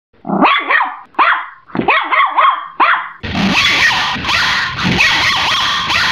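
Chihuahua barking in a quick run of short, separate yaps. About three seconds in, the barks carry on heavily distorted and blown-out, an amplified 'loud' version of the same bark.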